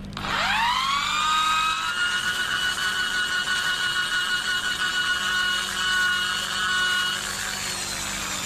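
Electric drill starting up and spinning an 8 mm stainless steel rod while sandpaper is held against it to smooth the tapered rod, the motor's whine rising to a steady pitch with a rasping hiss under it. Near the end the motor begins to wind down.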